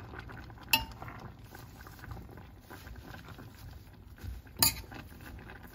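Metal spoon knocking against the rim of a stainless steel pot, two sharp clinks about four seconds apart, while leaves are stirred into the pot.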